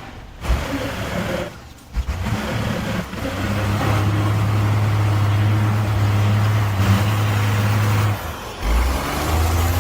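Heavy truck's diesel engine running hard under load, a steady deep drone that holds an even pitch for about five seconds before easing off near the end.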